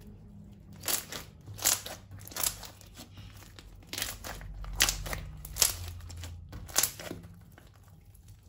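Crunchy slime being squeezed and pressed by hand: a string of about eight sharp crackles over some six seconds, then it stops near the end.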